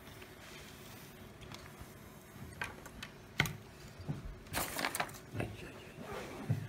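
Faint handling sounds of small parts: after a quiet start, a few sharp plastic clicks, the loudest about three and a half seconds in, then a thin plastic bag crinkling and rustling in the hands.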